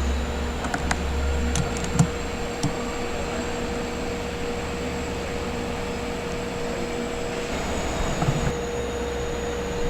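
A standing electric multiple-unit commuter train hums steadily at the platform as its onboard equipment runs, with a constant mid-pitched tone. A few sharp clicks or knocks come about two seconds in and again near the end.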